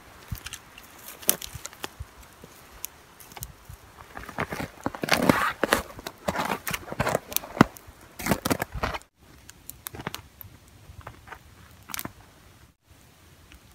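Small campfire of dry twigs and grass tinder crackling and snapping as it catches, with the rustle of dry tinder being pushed into the flames. The crackling is densest in the middle and breaks off briefly twice.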